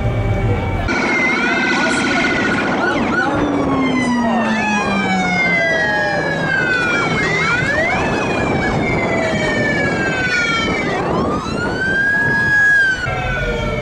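Several emergency-vehicle sirens from police cars and a fire engine wailing at once, their pitches rising and falling and overlapping throughout.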